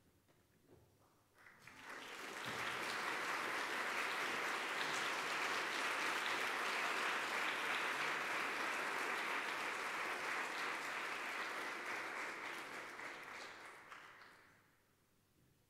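Audience applauding: it starts about a second and a half in, holds steady, and dies away near the end.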